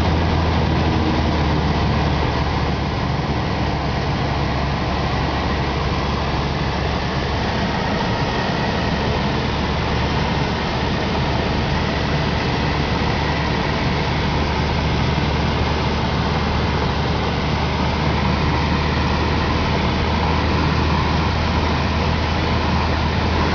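An engine running steadily, a constant low drone under an even rushing noise.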